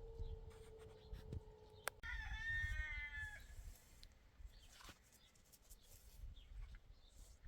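A single wavering animal call, about a second and a half long, starting about two seconds in, over low rumbling background noise. Before it, a faint steady tone sinks slightly in pitch and stops with a click.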